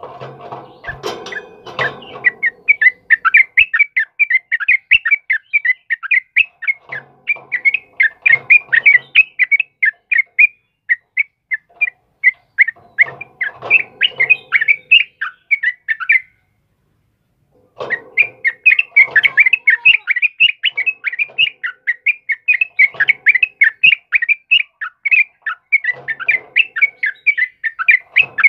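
Yellow-vented bulbuls singing a fast, unbroken run of chattering notes, the vigorous 'ropelan' song that keepers play to train or stir caged birds. The song stops dead for about a second and a half a little past the middle, then carries on.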